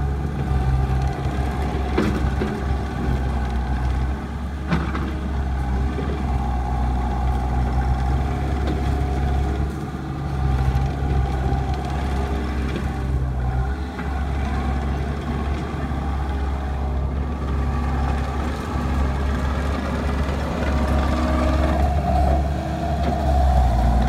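Takeuchi TL150 compact track loader's diesel engine running steadily as the machine works the ground with its bucket, with a couple of sharp knocks a few seconds in. It grows louder near the end as the loader comes close.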